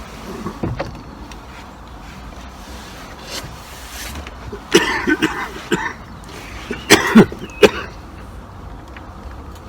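A few sharp knocks and clunks, in two clusters about five and seven seconds in, the loudest near seven seconds, over a steady low hum.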